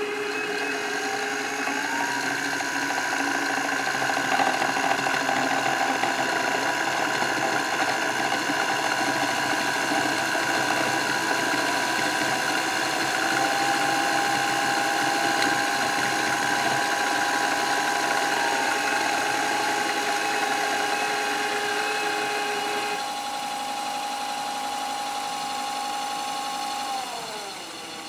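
Two electric spinning wheels, an Electric Eel Wheel 4 and an Electric Eel Wheel 5, running together: a steady motor whine and hum made of several tones. One tone rises in pitch about two seconds in as a wheel speeds up, and another joins about halfway through. Part of the sound cuts out a few seconds before the end, and the remaining whine then falls in pitch as a wheel winds down.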